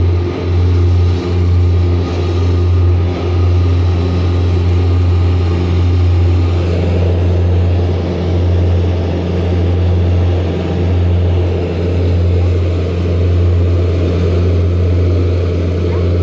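Small aircraft's engines droning steadily in cruise, heard from inside the cabin: a loud low hum with a few higher tones over it. For the first few seconds the drone swells and fades about once a second, then steadies.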